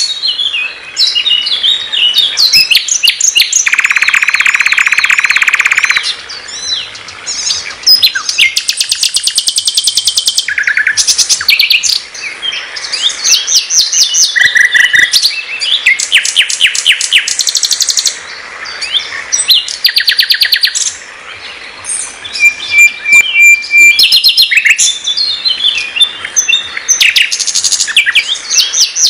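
Sikatan londo (nightingale) in full, varied song: rapid trills and fast series of repeated clicking notes, a long low buzzing rattle about four seconds in lasting some two seconds, and short pure whistles, with brief pauses between phrases.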